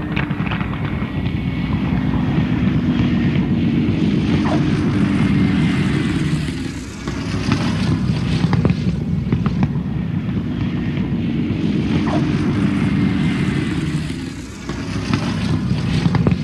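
Single-engine propeller fighter's piston engine running steadily, with brief drops in level about seven seconds in and again near the end.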